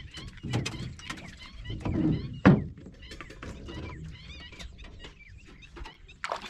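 Knocks and thumps on a wooden boat, the loudest about two and a half seconds in, and a splash near the end as a hooked fish thrashes at the surface.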